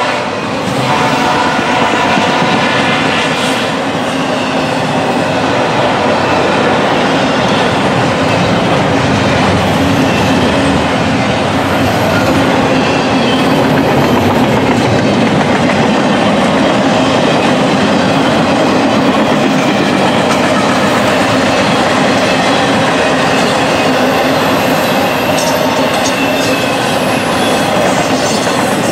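Double-stack intermodal freight train's container well cars rolling past at speed: a loud, steady rumble and clatter of steel wheels on rail.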